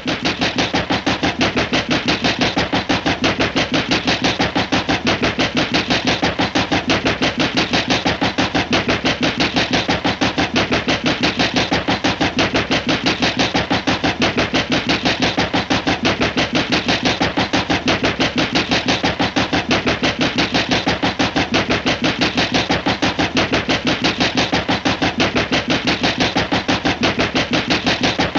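A loud, evenly repeating mechanical pulsing, about four beats a second, starting abruptly and holding a steady rate throughout.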